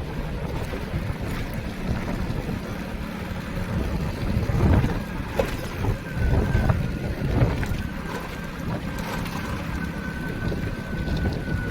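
A vehicle on the move with wind rumbling on the microphone, and a thin steady high whine from about halfway through.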